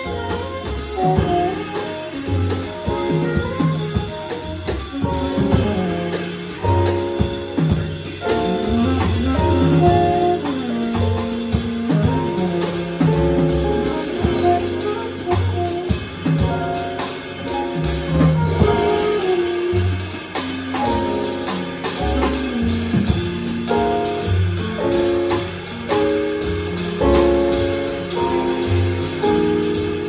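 Small jazz group playing live: saxophone over piano, upright bass and drum kit with cymbals.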